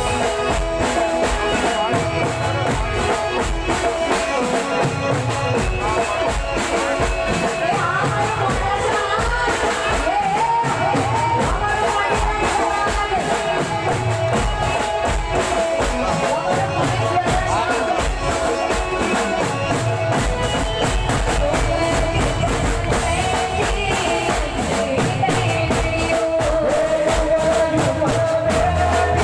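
Live Gujarati folk music played loud through a PA sound system: fast, steady percussion under a sustained melodic line that wavers in pitch at times.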